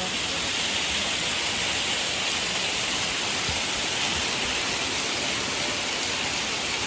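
Small hailstones falling heavily and pelting the ground and garden, a dense, steady hiss with no letup.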